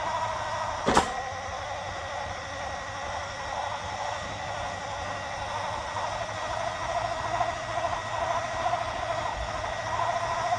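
Small electric motor and gear train of an RC toy car running as it drives in circles, a steady buzzing whine with a faint steady high tone above it. A single sharp click comes about a second in.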